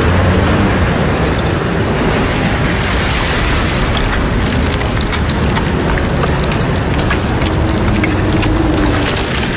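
Film sound effect of a steady deep rumble with grinding and crackling, for tombs breaking open; the crackling grows thicker about three seconds in.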